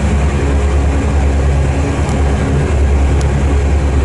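JCB 4CX backhoe loader's diesel engine running steadily as the machine is driven, heard from inside the cab as a constant low drone with a rumbling haze over it.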